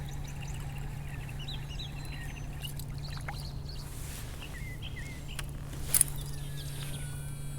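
Birds chirping and calling over a steady low hum, with a single sharp click about six seconds in and a falling whistled call near the end.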